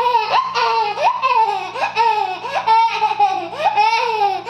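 A young girl's high-pitched voice without words, a run of falling squeals and laughter-like sounds.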